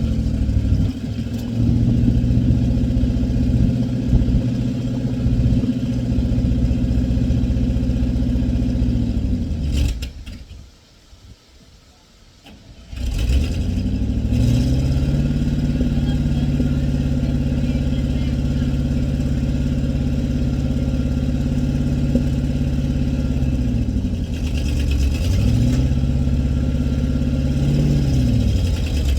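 A heavy engine running and being revved, its pitch rising and falling several times. The engine sound drops away for about three seconds near the middle, then comes back with a rising rev.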